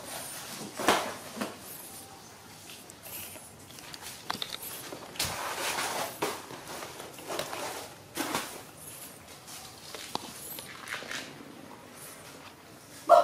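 Scattered light knocks, rustles and soft footsteps on a concrete floor as a baby macaque and a person move about and handle things, with a sharper knock about a second in.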